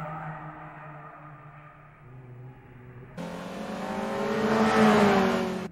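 Car engine sound effect of a Honda Civic EG6 racing. A steady engine drone cuts about three seconds in to a louder, high-revving engine with a hiss of speed over it. It swells to a peak and stops abruptly at the end.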